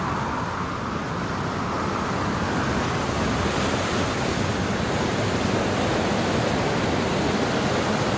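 Steady rush of a river in major flood, its fast water pouring against and between a bridge's pillars.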